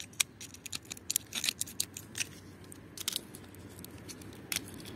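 Small snap-off utility knife cutting through a black rubber hose beside its metal fitting: quick, irregular sharp clicks and scrapes, dense for the first two seconds, then only a few.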